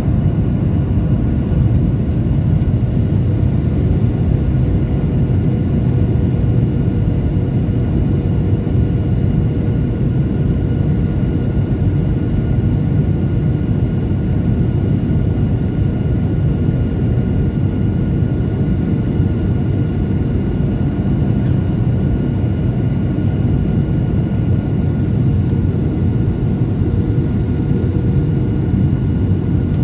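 Steady cabin noise of a jet airliner in flight, heard from a seat over the wing: an even, deep rush of engine and airflow with faint steady whining tones held above it.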